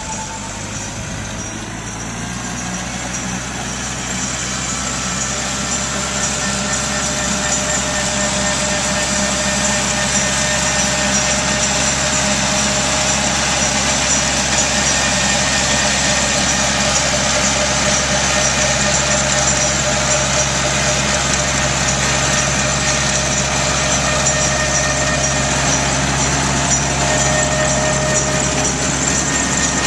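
Tractor engine running with a Turf Pride DSA7000 deep-tine aerifier working behind it, a steady mechanical drone with a high hiss on top. It grows louder over the first several seconds, then holds steady.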